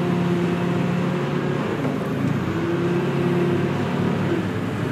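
Forklift engine running steadily at low revs, a steady hum with slight shifts in pitch.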